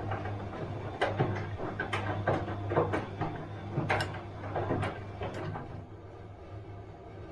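Bosch washing machine running: a steady low hum with irregular clicks and knocks from the turning drum, which die down about five and a half seconds in.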